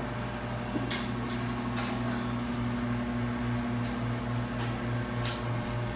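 Steady low machine hum with a slight pulse, joined about a second in by a steady higher tone, with a few brief hissing scrapes over it.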